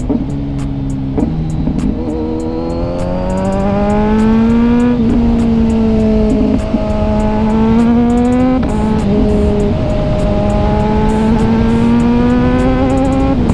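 Kawasaki Ninja 1000SX's inline-four, fitted with a full-system Arrow exhaust, accelerating hard through the gears. The engine note climbs steadily, dips briefly at two quickshifter upshifts (about five seconds in and again near nine seconds), then climbs again, over a low rush of wind.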